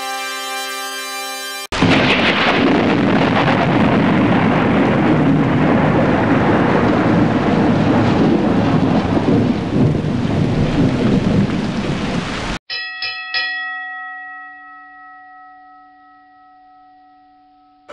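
Thunderstorm sound effect: a dense rumbling hiss of thunder and heavy rain lasting about ten seconds, coming in sharply after a short held musical chord. It cuts off into a few quick bell-like strikes whose tones ring on and slowly fade away.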